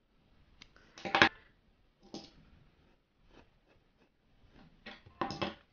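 Scissors snipping off a sewing thread end, one sharp snip about a second in, with a few fainter clicks and soft handling of the fabric doll afterwards.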